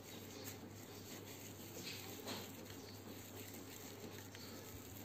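Faint soft squishing and patting of moist Oreo-biscuit chocolate dough being pinched off and rolled into a ball between the palms, a few soft pats about two seconds in, over a low steady hum.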